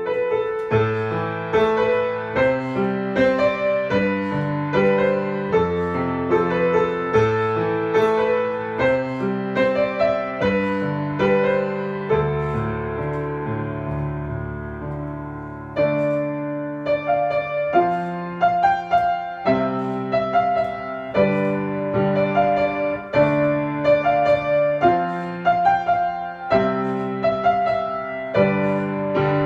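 Piano music: a steady run of struck chords, with one long held chord about halfway through before the rhythm picks up again.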